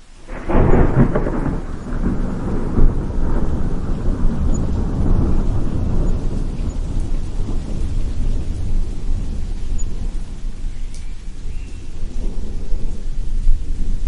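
A thunderclap breaks about half a second in and rolls on as a long, deep rumble with another swell near the end, over steady rain.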